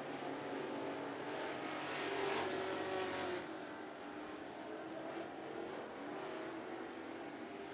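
Engines of coupe-bodied dirt-track race cars running at speed around the oval, with the pitch sliding up and down as they work through the turns. They get louder for about a second in the middle, then drop back.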